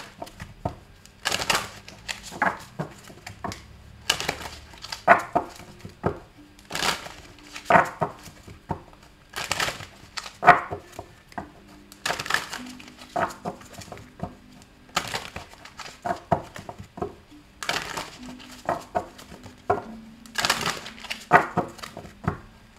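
A deck of oracle cards being shuffled by hand: a long run of short, crisp riffling and flicking strokes, about one a second.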